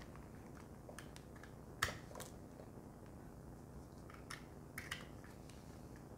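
A few small plastic clicks and taps from handling a fitness band and its magnetic charging cable, the sharpest about two seconds in and a small cluster near the end, over faint room hiss.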